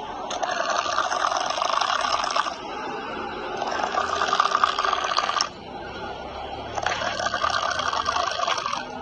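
A person snoring: three long, fluttering snores about three seconds apart, with quieter breaths between them.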